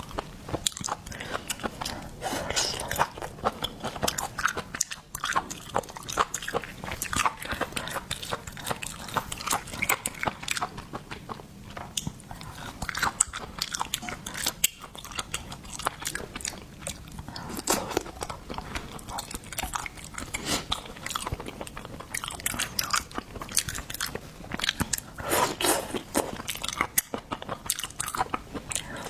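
Close-miked ASMR eating: a person biting and chewing seafood, a dense run of quick crunching clicks.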